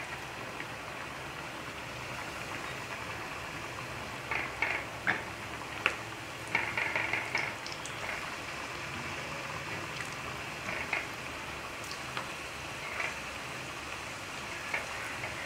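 Potato wedges coated in spiced cornflour deep-frying in hot oil: a steady sizzle, with short, louder bursts of crackling several times as fresh wedges go into the oil.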